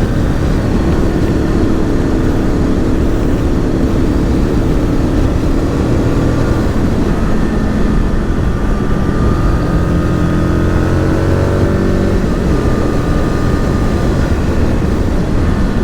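Aprilia RSV Mille R's V-twin running through an aftermarket Akrapovic exhaust on the move, over a dense rumble of wind. The engine note climbs from about nine seconds in and then drops suddenly near twelve seconds, as on a gear change or closing the throttle.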